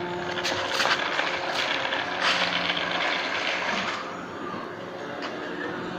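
Small battery-powered DC motor of a homemade toy car whirring steadily, with the rattle of its bottle-cap wheels rolling over rough concrete and a few sharp clicks in the first half. It gets a little quieter about two thirds of the way through.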